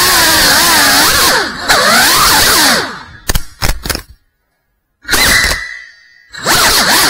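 FPV quadcopter's brushless motors and propellers whining, the pitch rising and falling as the throttle changes. About three seconds in the motors wind down with a few sharp knocks and go quiet, then a short burst is heard and the motors spin back up near the end.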